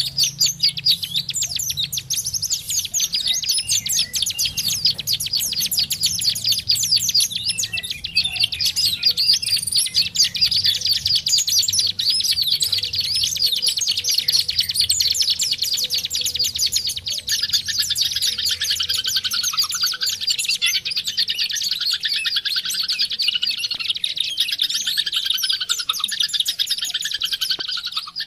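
White-eye (pleci) song: a continuous, rapid high twittering of the kind used as a lure to set a caged white-eye singing. Past the halfway point a lower series of repeated sweeping chirps joins in.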